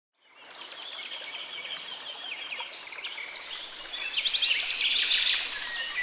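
Several songbirds chirping and trilling together, many calls overlapping, fading in just after the start and growing louder.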